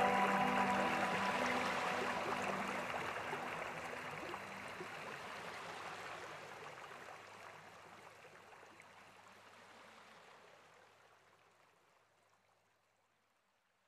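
Background soundtrack of running-stream water noise with a few soft held music notes, fading out steadily to silence over about twelve seconds.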